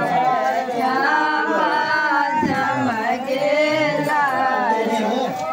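Women singing a traditional wedding folk song together, in long, wavering sung lines.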